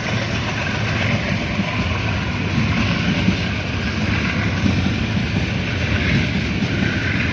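Freight train wagons rolling along the track: a loud, steady rumble and rattle of steel wheels on rails.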